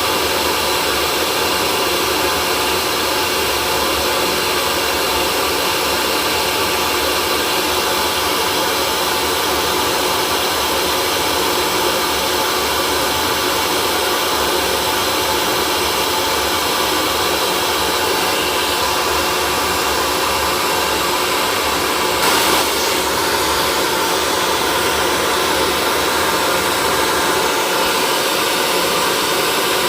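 Hair dryer running steadily: a constant rush of blown air with the steady whine of its motor, unchanging, with one short tick about three-quarters of the way through.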